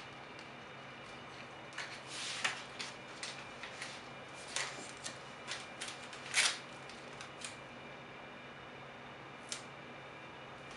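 Crinkling and crackling of adhesive vinyl and its paper backing being handled and peeled apart: a scatter of short crisp rustles and ticks, loudest about six seconds in, with one last crackle near the end.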